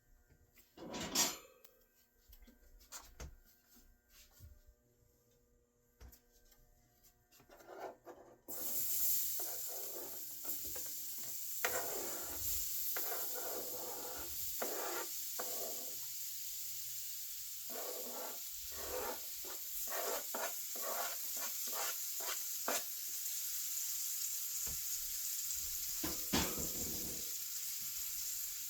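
A few knocks and clinks of kitchen utensils, then about eight seconds in food goes into a hot pan and starts sizzling steadily, with a utensil stirring and scraping through it in repeated strokes.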